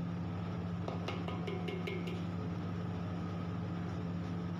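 Steady low machine hum, with a few light clicks about a second in.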